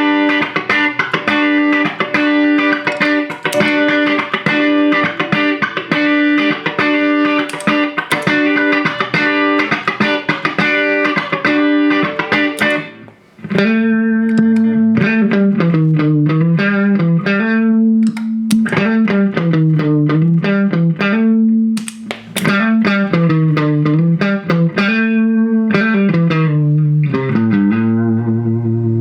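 Fender Stratocaster electric guitar played through a compressor pedal into a small Vox combo amp: fast, even picking on one chord, a short break about thirteen seconds in, then a single-note riff with notes sliding up and down, ending on a held low note.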